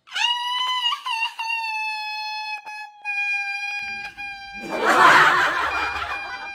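A person wailing in exaggerated crying: one long high-pitched wail that sinks slightly in pitch, with a louder, rougher sobbing outburst about five seconds in.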